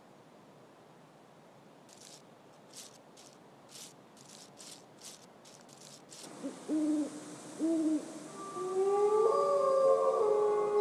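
Two short hooting calls about a second apart, then several howls that come in one after another and overlap, held and rising in pitch. Before the calls there is a run of about ten quick, soft scratchy strokes.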